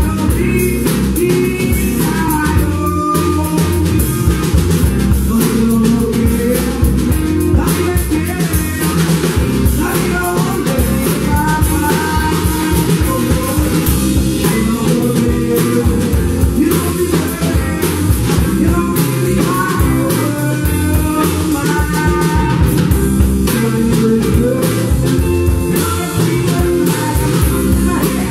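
Live blues-rock band playing: electric guitars and drum kit, with a woman singing lead.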